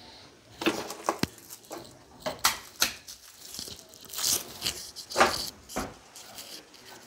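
Rummaging in a kitchen utensil drawer: a series of irregular clacks and knocks from utensils and the drawer, with plastic wrapping crinkling.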